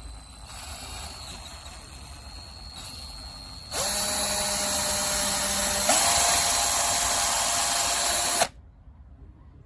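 KIMO 20V cordless drill driver motor running with a steady whine for about four and a half seconds. Its pitch steps up sharply partway through as it speeds up, then it stops suddenly.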